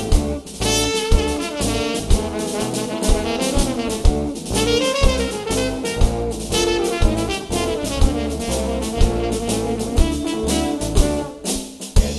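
Live band playing an instrumental passage: a brass horn carries the melody over drum kit, banjo and electric guitars. The band drops back briefly near the end.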